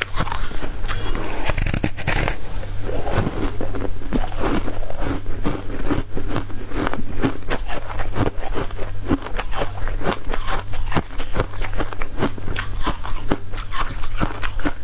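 Close-miked eating: biting and chewing a bendy, translucent yellow food sheet. The result is a dense, continuous run of wet crackles, crunches and mouth clicks with no pauses.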